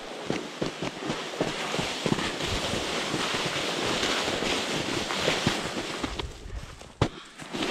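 Sled sliding down a snowy slope: a steady hiss of snow scraping under it, with many small crunches and knocks as it runs over lumpy snow and twigs. The hiss is loudest in the middle and dies away about six seconds in, followed by a sharp knock about seven seconds in.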